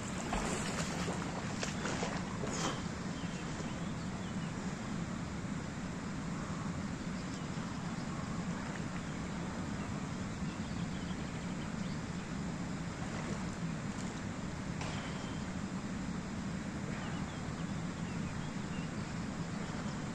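Steady outdoor background noise with wind on the microphone, and faint water splashes from a person swimming in a lake, a few sharper splashes in the first three seconds.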